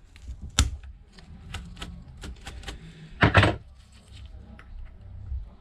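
Pliers clicking and tapping against the iPad's metal housing while its bent frame corner is straightened: a sharp click about half a second in, a run of lighter clicks, then a louder clatter around three seconds in.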